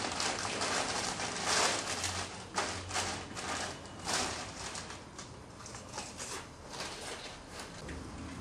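A clear plastic bag rustling and crinkling in irregular bursts as it is handled, busiest in the first half and quieter later.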